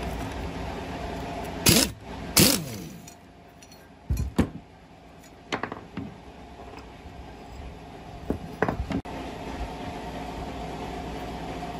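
An impact wrench fires two short loud bursts on the flywheel nut of an old four-stroke water pump engine, the second spinning down in a falling whine. Metal clinks follow as loose parts and the cooling fan are handled, over a steady background hum.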